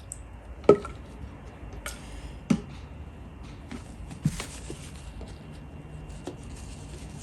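Slime being squeezed and poked by hand, with three sharp clicks about two seconds apart over faint crackling.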